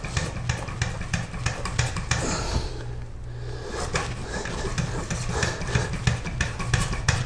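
A small hand saw cutting PVC: a saw blade rasping back and forth through the fitting glued inside a plastic drain pipe, in quick, uneven strokes.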